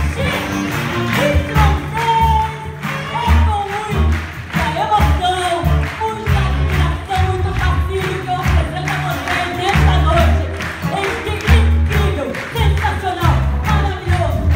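A woman singing a melody into a microphone, backed by a live band with electric guitar and drums.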